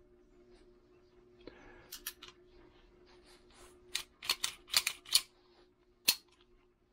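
Restored 1918 Colt 1911 pistol being handled, its steel action worked with sharp metallic clicks: a few light ones about two seconds in, a quick cluster around four to five seconds, and one more near the end. The action is very tight.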